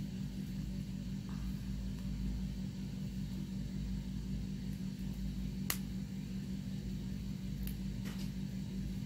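Steady low hum of room tone, with a sharp click about five and a half seconds in and two fainter ticks near the end as fingernails pick at the small plastic eyeliner packaging being opened.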